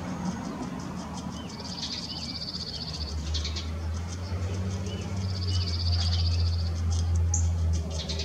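Grey squirrel gnawing on a bone: quick scraping clicks of teeth on bone. Small birds trill three times, about a second each, with a few short chirps. A low rumble swells from about three seconds in and is the loudest sound until just before the end.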